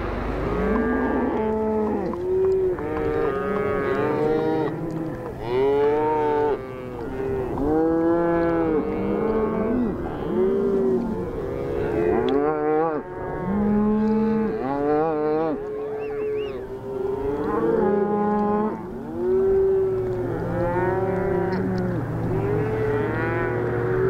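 A herd of beef cattle, cows and calves, being driven along a road, many animals mooing over one another at different pitches, call after call with hardly a break. A low steady hum joins in near the end.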